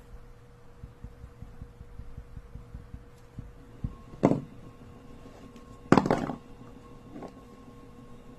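A few knocks and thuds over a faint steady hum: light low bumps during the first four seconds, then two sharp knocks about four and six seconds in, the second longer and loudest, and a softer one near the end.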